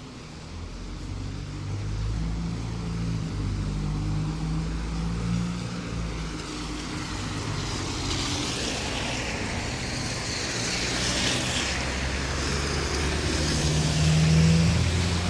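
Car engines running low as cars pass slowly, with a rushing hiss joining in about eight seconds in; loudest about fourteen seconds in.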